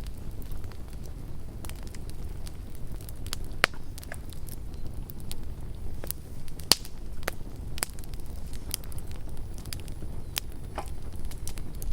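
Campfire burning, with a steady low rumble and irregular sharp crackles and pops of burning wood, the loudest about a third and halfway through.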